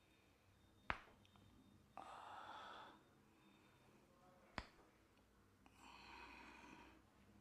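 Quiet head-massage sounds from a barber's hands: two sharp cracks, about a second in and about four and a half seconds in, each followed about a second later by a soft rushing noise lasting about a second.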